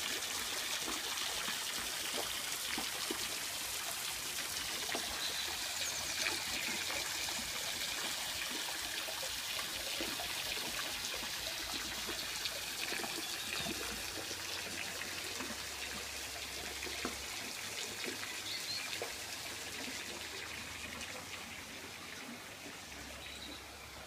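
Small garden pond waterfall trickling steadily, growing gradually fainter over the last several seconds.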